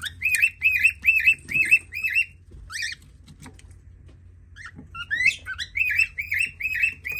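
Small pet parrot calling in two bouts of rapidly repeated chirps, about three a second, with a pause of a second or two in the middle.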